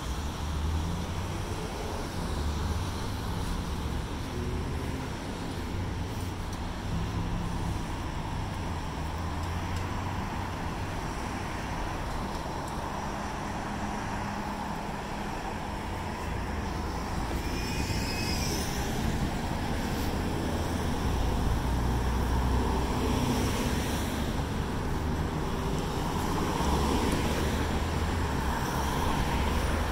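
City street traffic: a steady rumble of passing motor vehicles, a little louder in the last third, with a brief high chirp a little past halfway.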